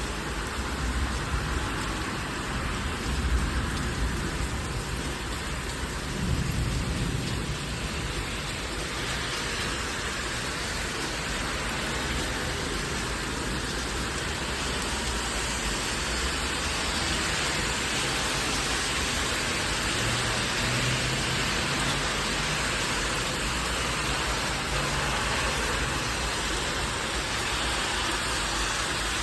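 Heavy thunderstorm rain falling steadily, with low rumbles of thunder in the first several seconds.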